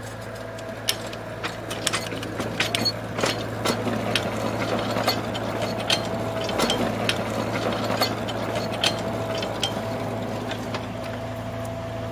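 Handcar rolling along a miniature railroad track: a steady rumble of wheels on rail, with frequent irregular sharp clicks and clanks.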